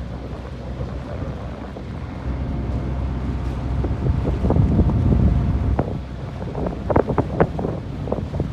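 Boat under way at sea: wind buffeting the microphone over a low, steady rumble. From about halfway through come a run of sharp, irregular slaps of water against the hull.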